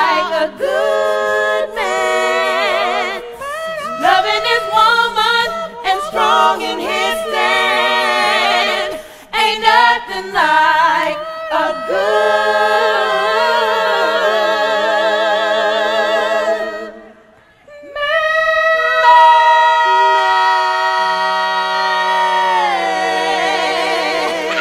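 Unaccompanied singing in several voices, with long held notes and vibrato. It breaks off briefly about 17 seconds in, then comes back on held notes.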